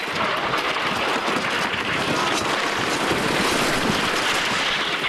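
Rushing wind on the microphone of a camera riding a wooden roller coaster, mixed with the rumble of the coaster train running along the track. The noise is steady and loud throughout.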